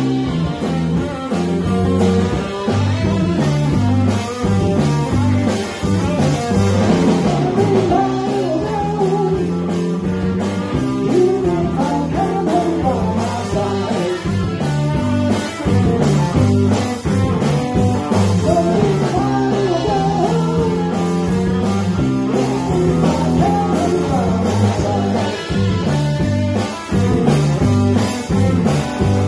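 Live rock band playing, with two electric guitars and a drum kit, and a man singing.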